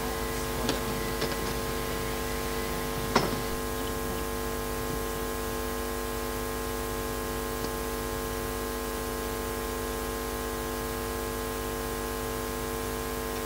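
Steady electrical hum with several steady tones over a constant hiss, with one sharp knock about three seconds in.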